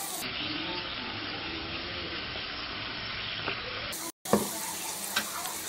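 Korean zucchini sticks sizzling steadily as they sauté in a little oil in a nonstick frying pan. The sound drops out briefly about four seconds in, followed by a single knock.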